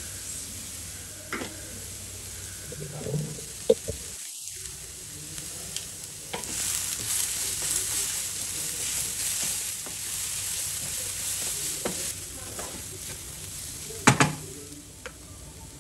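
Shredded cabbage and onion frying in a nonstick pan, sizzling while a wooden spatula stirs and tosses them. The sizzle grows louder about six seconds in, and the spatula knocks against the pan a few times, sharpest near the end.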